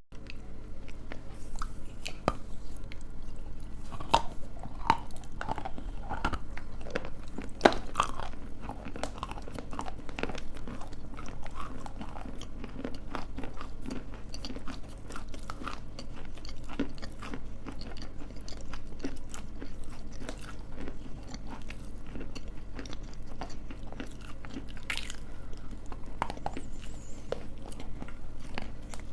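Close-miked biting and crunching of hard, crumbly pieces, with chewing. The crisp crunches come thick and fast, busiest a few seconds in.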